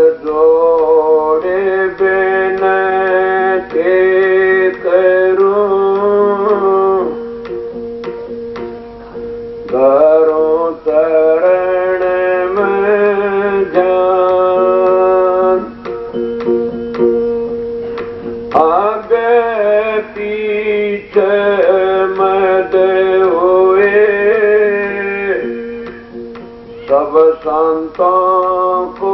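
A man singing a devotional hymn (shabd) in long melodic phrases with short pauses between them, over a steady drone from an accompanying instrument.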